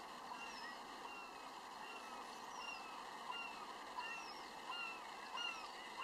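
A flock of birds calling outdoors: short, repeated calls, about two a second, over a faint steady background hiss, growing a little louder near the end.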